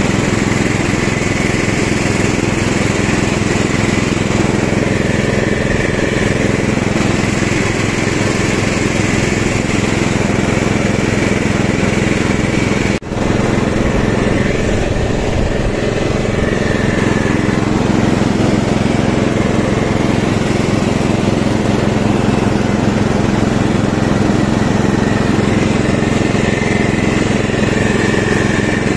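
Ride-on lawn tractor's 12.5 hp engine running steadily, with a momentary break in the sound about 13 seconds in.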